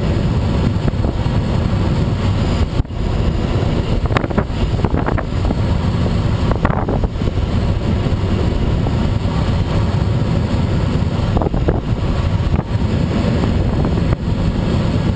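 Steady, loud rush of air over a Schweizer SGS 2-33A glider in unpowered flight, with wind buffeting the camera microphone.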